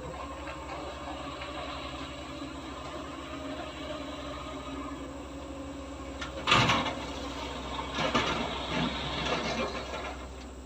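Heavy-equipment diesel engine running steadily, with a loud rush of noise about six and a half seconds in and more rushing between about eight and ten seconds.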